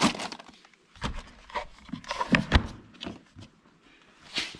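Several short knocks and clicks, bunched between about one and two and a half seconds in and once more near the end, from hands handling the ATV's plastic rear storage compartment.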